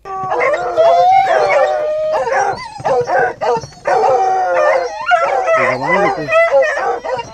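A pack of hunting hounds howling and baying together, several wavering, gliding calls overlapping. They start abruptly.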